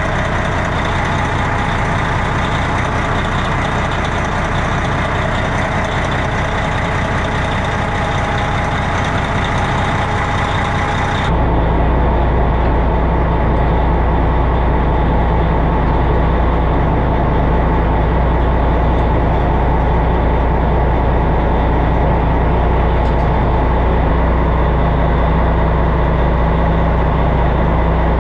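A diesel engine running steadily in a boat's engine space, loud and constant. About eleven seconds in, the sound changes abruptly to a heavier, deeper drone.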